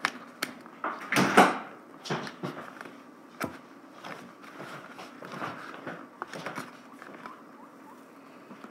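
Hands working at a GoPro's packaging that is hard to open: scattered clicks, knocks and rustles, with a louder scraping rustle about a second in.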